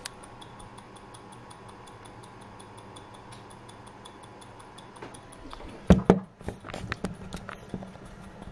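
Vostok Amphibia mechanical watch ticking at 19,800 beats an hour, about five and a half light ticks a second, a serviced movement running at about 286° amplitude. From about six seconds in, a string of louder knocks and rustles as the watch box and its paper are handled.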